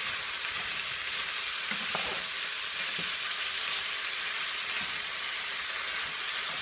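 Chicken pieces with eggplant, okra and potatoes frying in a pan, giving a steady sizzling hiss with a few faint crackles.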